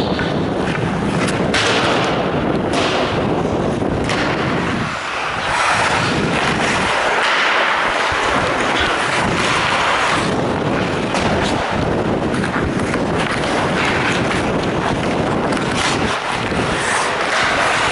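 Ice hockey play heard close up from a goalie's mask: skate blades scraping the ice and sticks and puck clacking, with several sharp knocks over a steady rushing noise.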